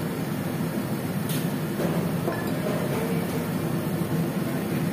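Steady roar of a commercial gas wok stove's burner and extraction, with a single light clink of the metal ladle on the wok about a second in.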